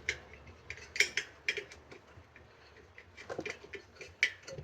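Light metal clicks and clinks from a bicycle wheel's spokes and a screwdriver as the spoke nipples are worked loose: irregular taps, a cluster about a second in and more near the end.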